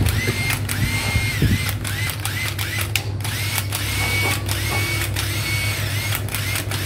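Makita cordless drill-driver run in repeated short trigger pulses: the motor whines up, holds briefly and winds down, over and over, with sharp clicks between the runs.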